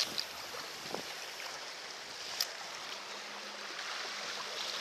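Steady wash of sea water lapping against concrete breakwater tetrapods, with a single sharp click about two and a half seconds in.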